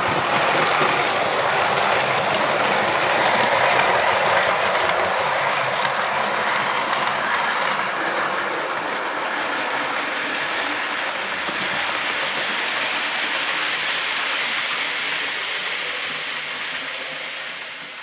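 Hornby Railroad 00 gauge model of an LNER P2 steam locomotive running on the layout's track with its rake of four model coaches. The wheels and motor make a steady running noise that fades away near the end.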